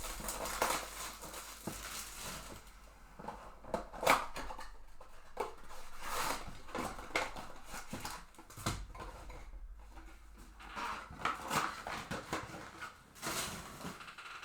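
A box of trading card packs being opened by hand: irregular crinkling, tearing and tapping of cardboard, foil wrappers and cards.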